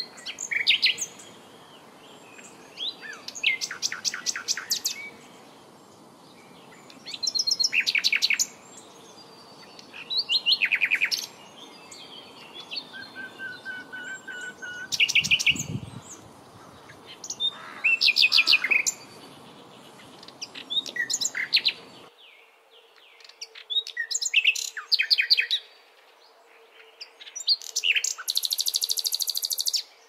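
Small songbirds singing: short, fast, high-pitched trilled phrases about a second long, repeated every two to three seconds. A low thump about halfway through.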